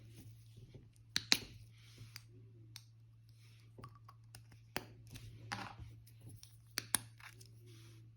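Slime being worked by hand during colouring: a handful of sharp clicks and pops mixed with short bursts of soft, sticky crackling, over a steady low hum.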